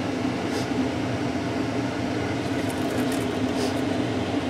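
Steady mechanical hum with a rushing noise under it, unchanging throughout, with a few faint, brief scratchy sounds in the middle.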